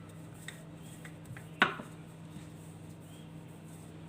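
A single sharp clack of a kitchen utensil against the hard work surface about one and a half seconds in, with a few faint taps before it, over a steady low hum.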